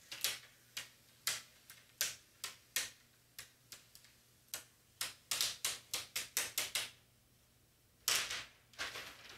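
Clear plastic transfer tape crackling in short, sharp clicks as it is pressed down over vinyl and then peeled back off, the clicks coming faster as it peels. A longer crinkling rustle comes near the end as the used sheet is set down.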